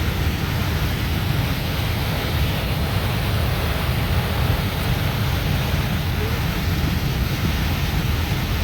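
Boat under way on a river: a steady low engine rumble mixed with rushing wind noise on the microphone, unchanging throughout.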